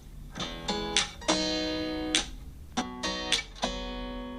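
Acoustic guitar strumming chords, each stroke ringing on between strokes, in an instrumental break between sung lines.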